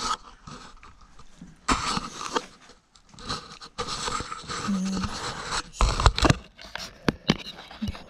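Tools being handled and moved about: irregular scraping and rustling broken by several sharp knocks, with a heavier thump about six seconds in.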